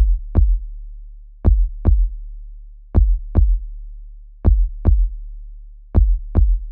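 Electronic drum-machine beat: a deep double thump, like a heartbeat, repeating about every one and a half seconds over a low held bass tone. It starts abruptly out of silence.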